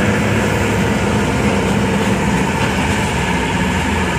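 Engine of an open-sided safari tour vehicle running steadily as it drives along, heard from a passenger seat inside, with a low even hum.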